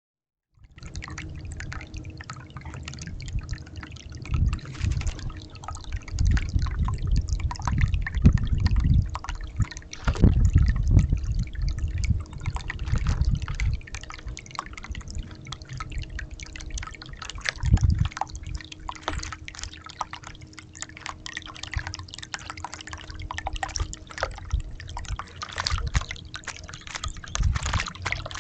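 Acorn woodpecker bathing in a bird bath, with quick splashing and dripping water throughout. Several louder low thumps come in the first half and once more near the middle.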